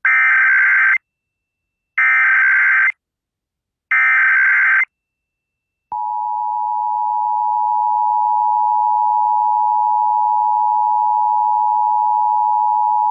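Emergency Alert System tones on AM radio. First come three one-second bursts of the SAME digital header, a harsh data warble, about two seconds apart. About six seconds in, the steady two-tone EAS attention signal starts and holds.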